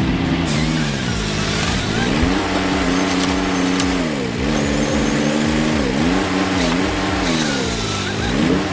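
A machine's engine running hard, its pitch repeatedly dropping and climbing back again as it takes and sheds load.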